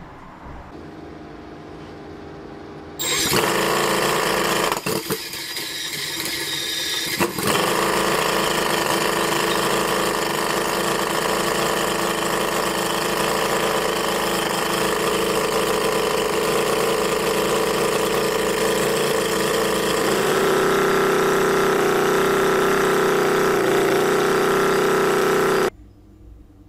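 Enjomor GS-V8 78cc four-stroke gasoline model V8 engine starting about three seconds in, faltering briefly, then running steadily. Its note changes about twenty seconds in, and the sound cuts off suddenly near the end.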